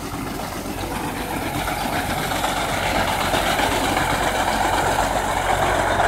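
Belarus MTZ-50 tractor's four-cylinder diesel engine running steadily under load while its front-mounted reaper cuts standing wheat, getting louder as the tractor comes closer.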